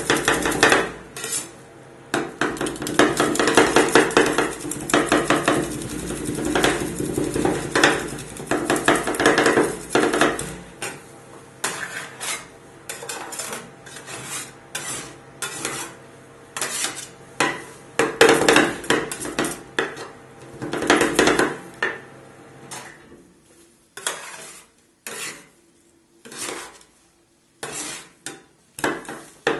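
Steel scrapers chopping and scraping crushed chocolate-bar pieces on a stainless-steel rolled-ice-cream cold plate: fast runs of clattering metal-on-metal taps, thinning to a few separate taps with pauses near the end.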